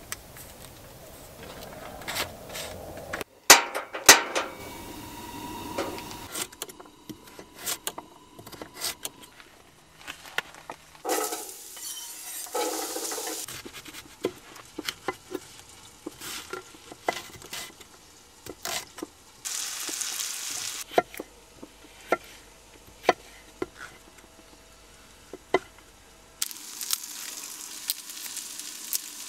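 Knife chopping vegetables on a wooden cutting board, with sharp taps at an uneven pace and rustling as the food is handled. Near the end, a steady sizzle of food frying in a pan.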